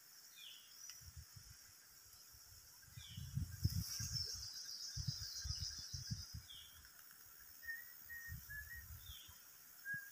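Outdoor ambience among palms: a bird gives a short falling call about every two seconds, with a few short steady whistled notes near the end. A high buzz comes in around four seconds in. Low rumbling thumps on the microphone are the loudest part, in the middle.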